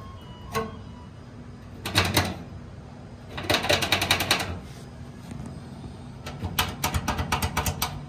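Three short runs of quick metallic clicking, about ten clicks a second, from a tool backing out the screws that hold the blower assembly in a furnace cabinet.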